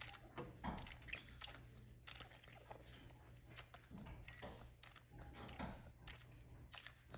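Spider monkey sucking on a baby bottle's nipple: faint, irregular wet clicks and smacks, several a second.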